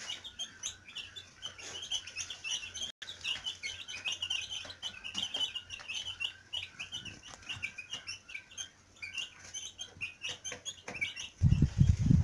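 A brood of young chicks peeping steadily with many short, high chirps while they feed. Near the end a loud low rumbling cuts in.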